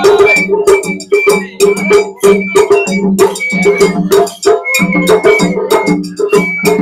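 Matsuri hayashi festival music from the dashi float: taiko drums struck with sticks in a quick, steady beat of several strikes a second, with held pitched notes sounding over the drumming.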